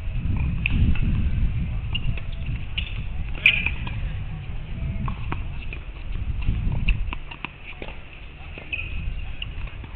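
Tennis ball knocks on a hard court: a scattered series of short, sharp taps of ball on court and racket strings, the sharpest about three and a half seconds in, over an uneven low wind rumble on the microphone that drops away about seven seconds in.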